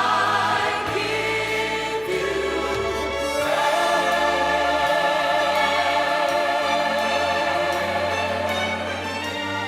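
Choir singing a gospel song with instrumental accompaniment, in long held notes with vibrato.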